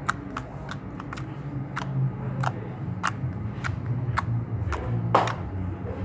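Soft, slightly brittle store-bought slime being squeezed and worked by hand, making irregular sharp clicks, about ten of them, the loudest a little before the end. A low steady hum runs underneath.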